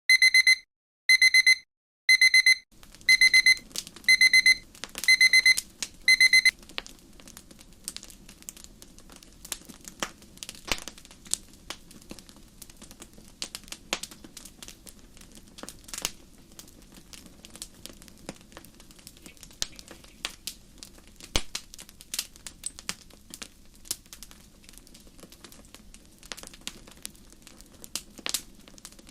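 Digital timer alarm beeping: short, high, repeated beeps in quick groups that stop after about six seconds, the Pomodoro timer signalling the end of a 25-minute focus block. After it come faint, scattered light clicks over a low steady background.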